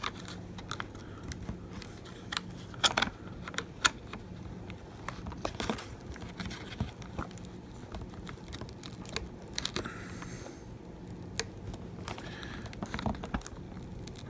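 Irregular small clicks, taps and light scraping of a pry tool working at an iPhone 7 Plus battery that is still held down by its adhesive.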